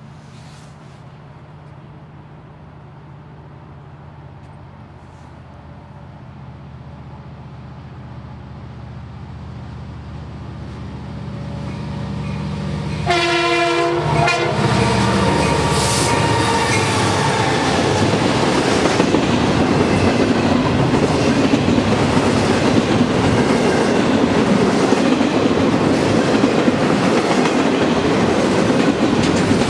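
Diesel locomotive engine rumble growing louder as a train approaches, then a short horn blast about 13 seconds in. After that the train passes close by with loud steady wheel-on-rail noise and a rhythmic clickety-clack.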